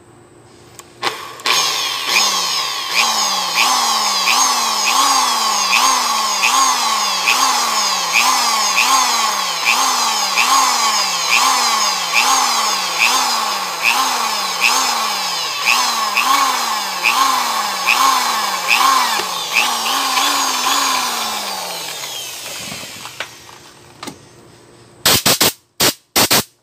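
Cordless drill boring a small pilot hole into the aluminium engine head casting of a Honda TMX Alpha 125, its motor pitch rising and sagging about one and a half times a second as the bit bites. Near the end the motor winds down, followed by a few sharp clicks.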